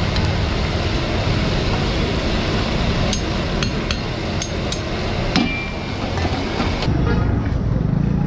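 Steady street din with about half a dozen sharp metallic taps, irregularly spaced, starting about three seconds in, each ringing briefly.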